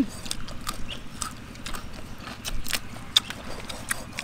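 A series of irregular, sharp clicks and taps.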